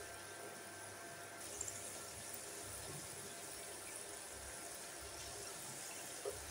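Hot oil sizzling steadily around gokul pitha dumplings deep-frying in a pan, a faint hiss that grows a little brighter about a second and a half in.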